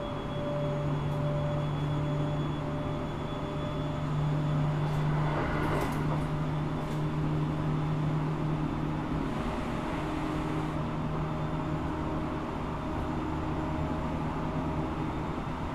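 Running sound inside the motor car of a 701 series electric train, KuMoHa 701-5009 with its original unrenewed VVVF control equipment, at a steady speed. There is steady rolling noise with a few steady tones that do not change pitch, and a few short clicks about five to seven seconds in.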